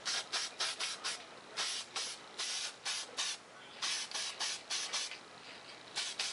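Aerosol spray paint can hissing in a rapid series of short bursts, a few a second with brief pauses, as a light first coat of paint goes on.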